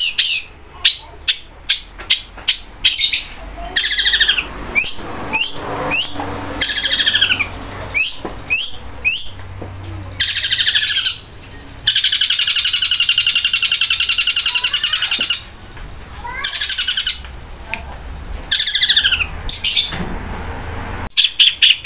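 Long-tailed shrike (cendet) singing loudly in a cage: a string of sharp, falling whistled notes and rapid chatters, with one long, very fast trill lasting about three and a half seconds near the middle. These long, loud trills are the 'shots' that keepers prize in a cendet's song.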